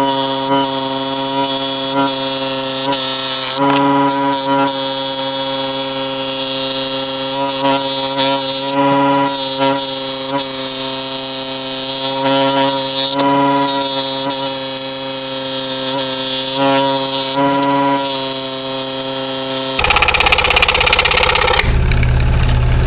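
Scroll saw running and cutting through hardboard: a steady motor hum under the rasp of the blade. Near the end the sound changes to a different, deeper one.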